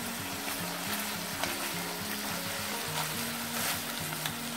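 Squid sizzling in oil in a frying pan, with a few light clicks of metal tongs turning the pieces. Quiet background music plays underneath.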